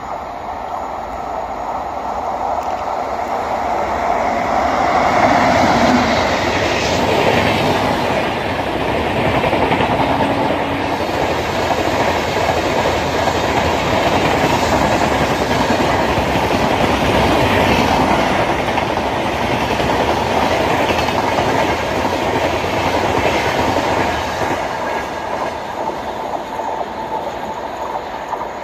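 WAP7 electric locomotive and its express train of passenger coaches passing at speed: the noise builds to a peak about five seconds in as the locomotive goes by, then the wheels clatter on the rails as the coaches run past, fading after about 24 seconds.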